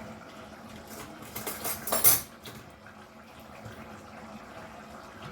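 Kitchen utensils clinking and clattering against a pot, a short run of knocks with the loudest just after two seconds in.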